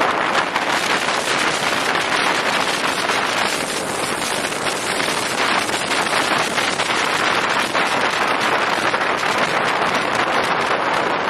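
Wind and road noise inside a moving car with a window open: a steady rush with no break.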